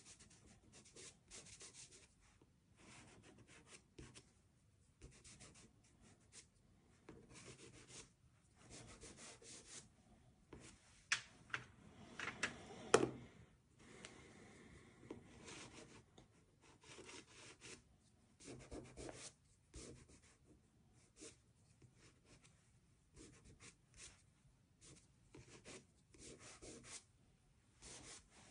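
Soft pastel stick and fingertips stroking and rubbing on paper: a faint run of short scratchy strokes, with a few sharper knocks about halfway through.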